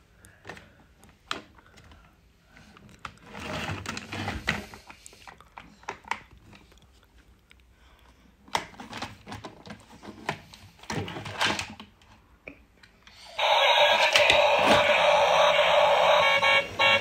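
Plastic clicks and rattles as a transforming dinosaur toy car is handled and its parts snapped into place. About thirteen seconds in, the toy's built-in electronic sound effects start, loud and steady, as its lights come on.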